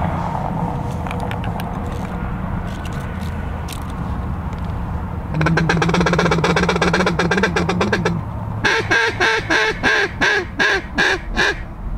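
Mallard duck call blown by a hunter: a fast chattering run about five seconds in, then a string of about ten loud quacks, roughly three a second, to bring circling mallards in.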